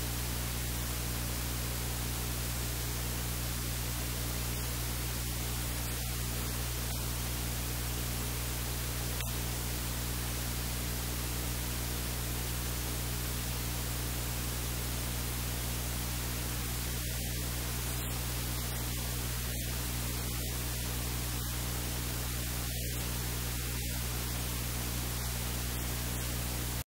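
Steady hiss with a low electrical hum underneath, unchanging throughout: recording noise with no other sound standing out.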